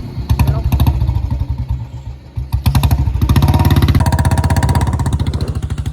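Royal Enfield Bullet Electra 350's single-cylinder four-stroke engine running with a rapid string of exhaust thumps. It eases off about two seconds in, then is revved back up, the thumps coming louder and faster.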